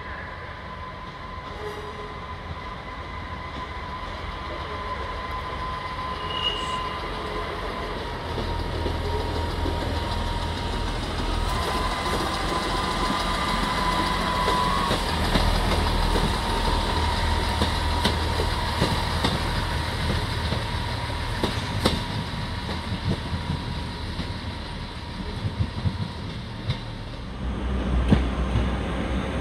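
Diesel multiple-unit passenger trains moving slowly through a station: a low engine rumble that grows louder after the first few seconds. A steady high whine runs through the first half, and scattered wheel clicks over rail joints come later.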